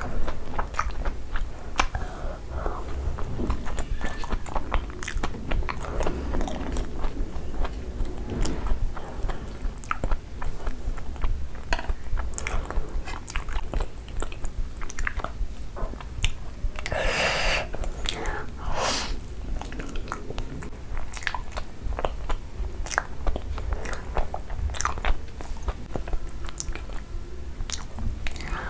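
Close-up eating sounds: biting into and chewing a breadcrumb-coated fried cheese corn dog, with crisp crunches of the crust and wet chewing, repeated throughout. One longer, louder burst of noise comes a little past halfway.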